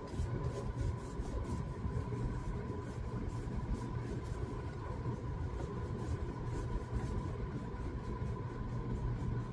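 Paintbrush stroking paint onto a cardboard box, a soft intermittent brushing over a steady low hum.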